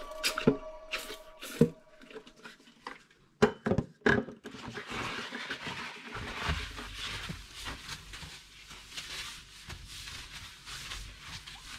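Spray cleaner spritzed onto a glass-ceramic hob in several short, sharp bursts, then a cloth rubbing across the glass in continuous wiping strokes from about four seconds in.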